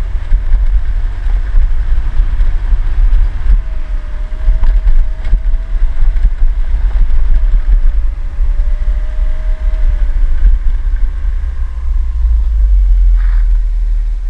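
A motor scooter ridden down a bumpy dirt road, heard from a camera mounted on it: a loud, low, fluctuating rumble of wind and road. The engine's faint whine wavers in pitch from about four seconds in to about ten.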